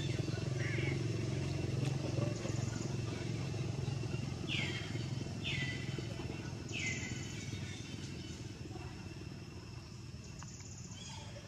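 Steady low drone of a distant motorcycle engine that slowly fades, with three short high-pitched squeals about halfway through.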